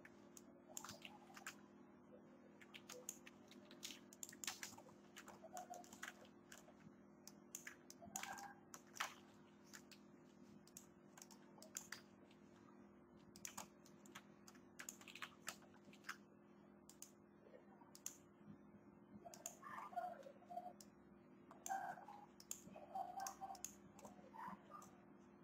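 Faint, irregular clicking of a computer keyboard and mouse, in scattered runs that grow busier near the end, over a steady low hum.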